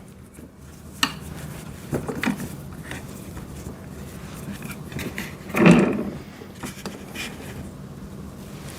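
Scattered metallic clinks and knocks from a wrench on the wheel-axle bolts of a wood chipper's metal frame as they are tightened down, with one louder bump a little past halfway.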